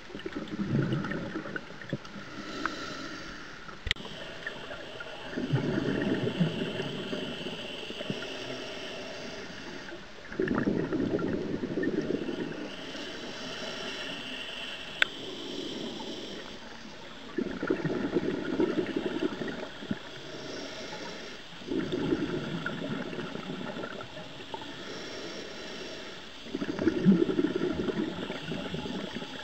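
A scuba diver's open-circuit regulator breathing: six gurgling bursts of exhaled bubbles, about one every four to five seconds, with a quieter hiss between them. Two sharp clicks are heard, one about four seconds in and one about fifteen seconds in.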